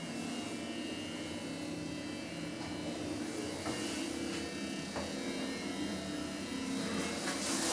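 Steady drone inside a lift car travelling upward, mostly its ventilation fan running, with a couple of faint clicks a few seconds in.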